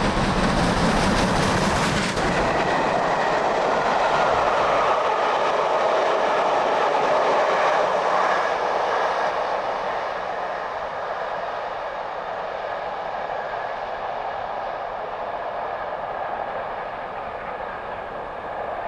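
Southern Railway Merchant Navy class Pacific steam locomotive 35028 Clan Line passing at speed with a train of Pullman coaches. A deep rumble in the first two seconds gives way to the loud rush of the coaches' wheels on the rails, which fades steadily from about nine seconds in as the train draws away.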